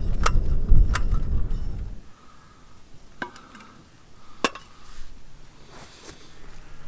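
Sharp clicks and rattles of a folding slatted aluminium camp table being put together, over a low rumble. The rumble then stops, and a few light metallic clinks follow as a mug and flask are handled on the metal tabletop, the clearest about four and a half seconds in.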